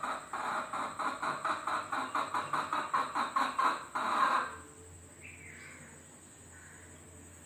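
Domestic hen cackling: a fast, rhythmic run of clucks, about four a second, that builds to a louder, drawn-out call about four seconds in and then stops, leaving only faint distant chirps.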